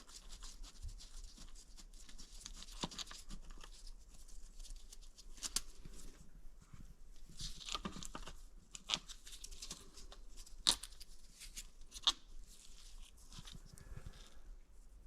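Quiet hand work on a small engine: scattered sharp clicks and taps of small metal parts being loosened and set down, with rustling and scraping in between.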